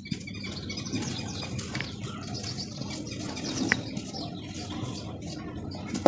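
Dry red dirt crumbled by hand: a steady crunchy rustle with small crackles as lumps break and powder pours. There is a slightly louder crunch about two-thirds of the way in and a sharp crack at the very end.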